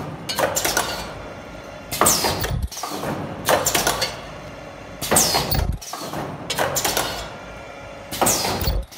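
Automatic folding face-mask machine cycling: a clatter of pneumatic cylinders and a falling hiss of air, three times about three seconds apart, with lighter clicks in between.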